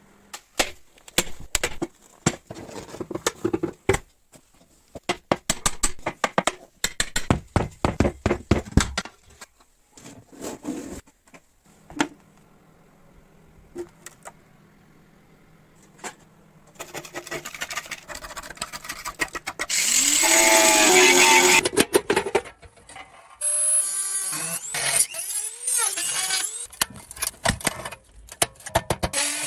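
Workshop sounds of motorcycle restoration: a long run of tool knocks and clicks, then a power tool running loudly for a few seconds about two-thirds of the way in, followed by more irregular scraping and squeaking.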